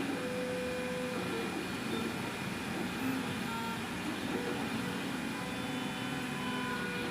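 MINGDA MD-6L 3D printer at work printing, its stepper motors whining in short steady tones that jump in pitch as the print head changes moves, over a steady hiss of fan noise.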